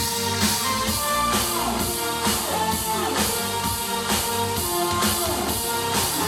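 Music with a steady drum beat, played back through a portable Bluetooth speaker at high volume and recorded from about six feet away.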